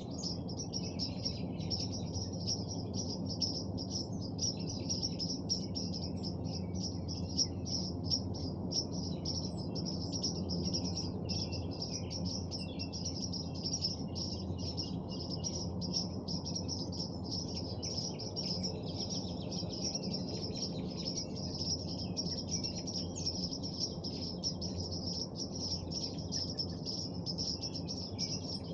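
Many birds chirping and calling at once in a dense, continuous evening chorus, with rapid high chirps over a steady low rumble.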